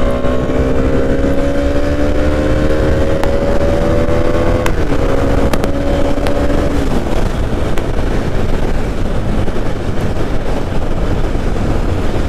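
Benelli 302R's 300 cc parallel-twin engine pulling on the road, its note rising slowly, then dropping about five seconds in as it shifts up. The engine fades out about seven seconds in, leaving heavy wind and road noise.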